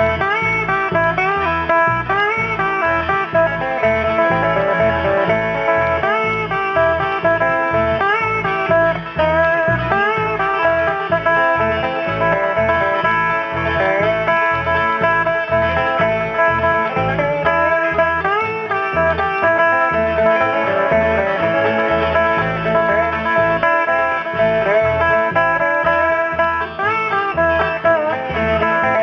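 Bluegrass band playing live: an instrumental passage of banjo and guitar over a steady bass beat.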